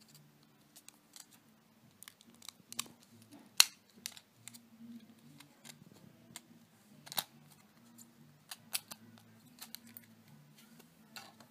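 A clear plastic blister pack being worked open by hand: scattered clicks and crackles of the thin plastic, the sharpest about three and a half seconds in and again about seven seconds in.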